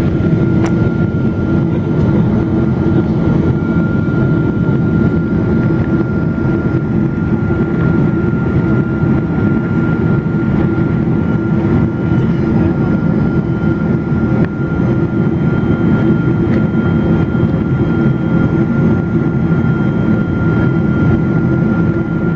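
Steady cabin noise inside a Boeing 777-200 in flight: a continuous deep rumble of the engines and rushing air, with a thin steady whine above it.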